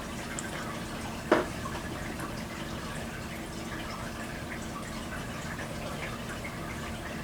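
Steady low background hiss with a faint hum, and a single sharp knock about a second in.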